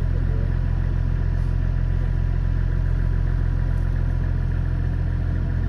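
A vehicle engine idling steadily, its sound lying mostly low in pitch and unchanging throughout.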